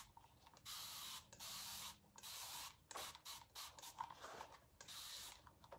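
Faint, repeated hiss of a trigger spray bottle misting water onto a fabric shoe: several sprays, some short and one longer than a second, to dampen the fabric before painting.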